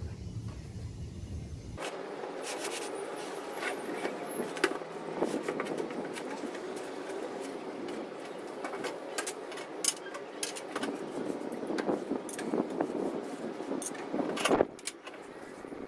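Unpacking a cardboard box of metal grill parts: cardboard flaps and plastic wrapping rustling, with many light clicks, clinks and knocks as the metal grill grates and slatted panels are handled, and one louder clack near the end.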